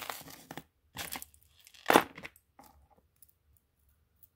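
Handling noise: a few short rustling, scraping bursts as small items are moved on a cloth-covered table, the loudest about two seconds in.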